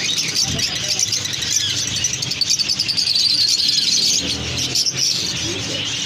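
Dense chorus of caged small birds, budgerigars among them, twittering and chattering continuously, busiest about the middle.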